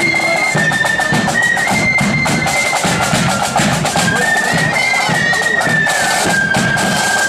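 A pipe band playing on the march: bagpipes sound a melody of long held notes that step from pitch to pitch over their steady drone, with drums beating a regular rhythm underneath.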